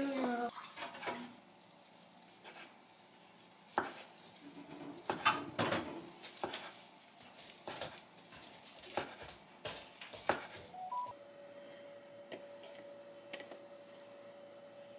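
Kitchen knife slicing through a rolled thin egg omelette on a wooden cutting board: a run of irregular knocks of the blade on the board. About eleven seconds in, a faint steady tone starts and holds.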